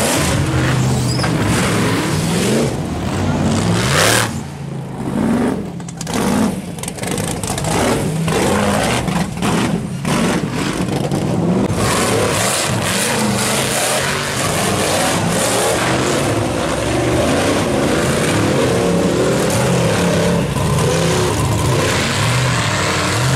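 Off-road rock bouncer buggy's engine revving hard as it climbs a dirt course, in short throttle bursts with brief lifts for the first half, then held at steady high revs.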